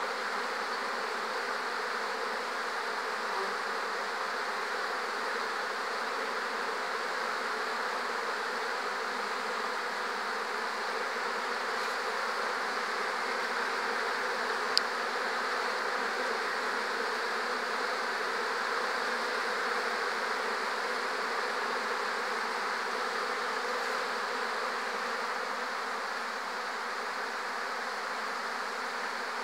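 Steady, dense hum of many honeybees flying in and out of hive entrances, with one short sharp click about halfway through.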